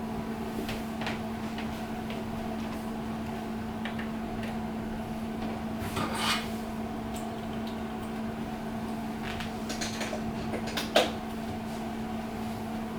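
Cables and plastic parts of a laptop docking station being handled and plugged in: faint rustles and small clicks, the sharpest click about eleven seconds in, over a steady low electrical hum.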